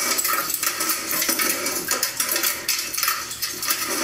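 A dense, irregular run of light clinks and rattles, like small hard pieces knocking together.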